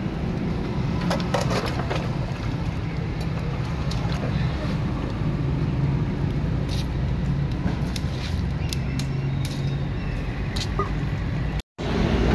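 Street background noise: a steady low engine rumble of traffic, with scattered sharp clicks and knocks. The sound drops out for a moment near the end.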